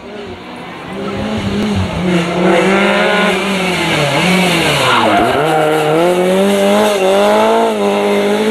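Lancia 037 Rally's supercharged four-cylinder engine revving hard as the car drifts, its pitch rising and falling with a sharp drop just after five seconds in before it climbs again, with the tyres squealing.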